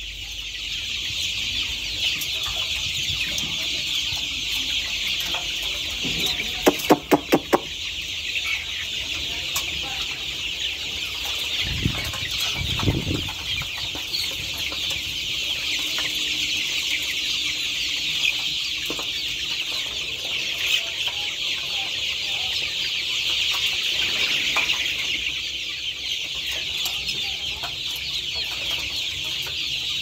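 A large flock of young chickens peeping and clucking all at once in a dense, continuous high-pitched chatter. About seven seconds in, a quick run of five loud pulses stands out above the flock.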